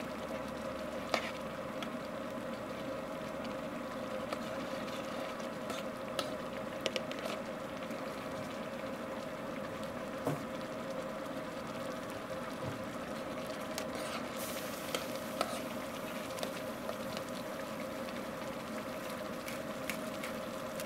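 Chili sauce bubbling and sizzling at a simmer in a steel pan over forge coals, with a few light clicks of metal utensils against the pan and a steady hum underneath.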